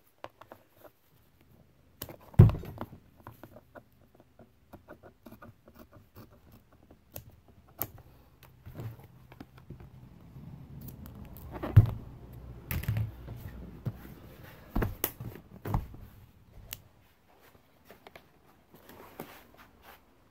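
Handling noise as a vinyl-covered seat and hand tools are moved about on a cardboard-covered bench: scattered clicks and knocks, with a sharp thump about two seconds in and several more between twelve and sixteen seconds, the loudest near the middle.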